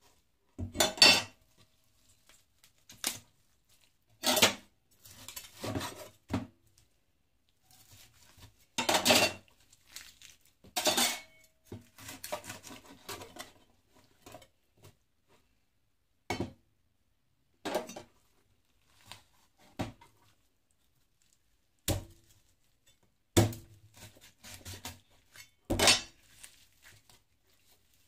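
Meat cleaver chopping raw chicken into pieces on a plastic cutting board: single sharp chops at irregular intervals, a second or more apart, with quieter handling of the meat between them.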